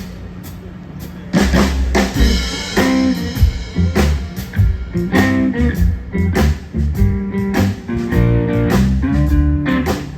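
Live blues-rock band playing drum kit and guitar, coming in at full volume about a second and a half in after a quieter stretch with a low steady hum.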